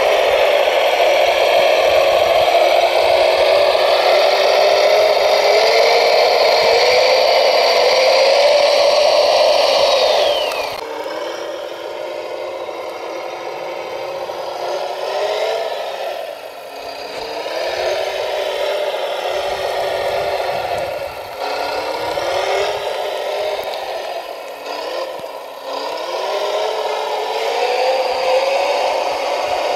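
Radio-controlled scale model of a Volvo L250G wheel loader working in muddy water: a steady mechanical drone that climbs slowly in pitch, with a high whine above it that slides down and stops about ten seconds in. After that the drone is quieter and dips and rises several times, climbing again near the end.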